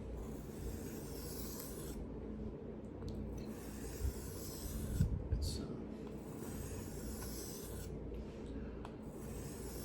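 Steel knife blade drawn across a sharpening stone in long scraping strokes, about four strokes each a second or two long, as the heel of the edge near the ricasso is worked.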